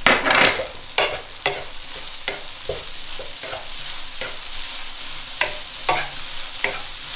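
Diced steamed-bun cubes and green onion frying in a nonstick wok, stirred with a wooden spatula: a steady sizzle with repeated scraping strokes of the spatula against the pan.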